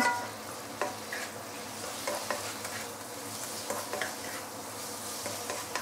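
Roast pork and garlic sizzling in a hot nonstick wok while a wooden spatula stirs it, with a few short scrapes and knocks of the spatula against the pan.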